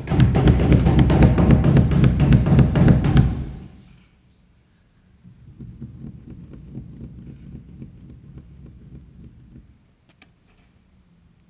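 Improvised percussive sound-making: a loud, dense rattling full of rapid clicks for about three and a half seconds, then a quieter low rumbling texture, with a few sharp clicks near the end.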